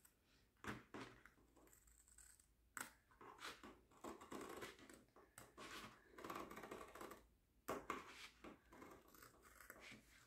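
Scissors cutting around the edge of a diamond-painting canvas, with faint crinkling and scraping as the canvas is shifted on the table. A few sharper snips stand out, about a second in, near three seconds and near eight seconds.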